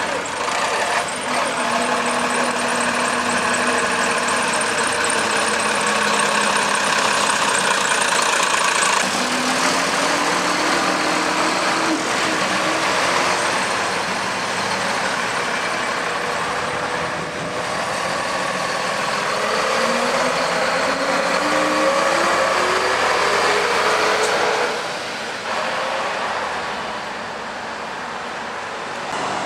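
AEC Routemaster double-decker buses driving and pulling away, the engine note rising in pitch twice as they accelerate through the gears.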